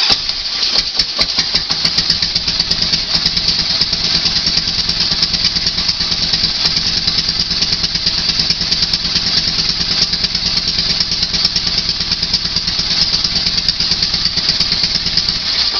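Harley-Davidson V-twin motorcycle engine catching at once on the electric starter and idling steadily on a quarter choke.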